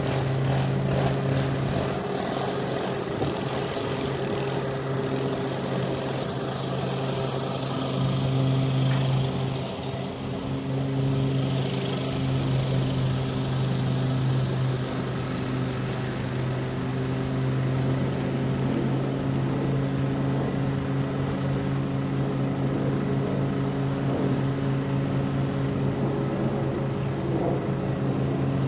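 Walk-behind gasoline lawn mower running steadily while mowing grass, with a brief dip in level about a third of the way through.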